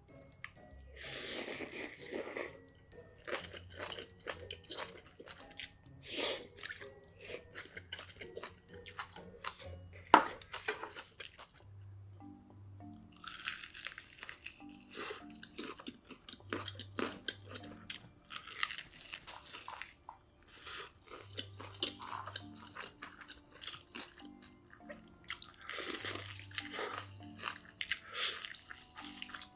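Close-miked eating: food crunching and being chewed in bites, with many sharp crackly crunches, over soft background music.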